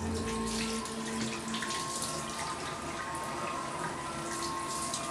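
Water running steadily from a kitchen faucet into a sink, splashing over a cup and then a small brush held under the stream.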